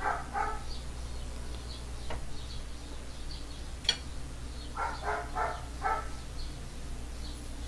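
A dog barking in the background, twice at the start and then a quick run of four barks about five seconds in, with birds chirping faintly throughout. A single sharp click sounds just before the four-second mark.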